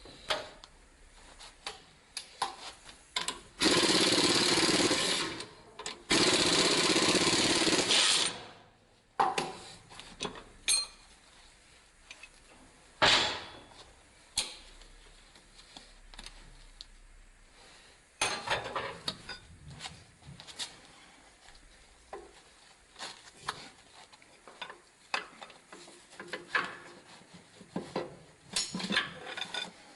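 A power tool run twice in a row for about two seconds each, starting about four seconds in, followed by scattered metallic clinks and knocks of engine parts being handled.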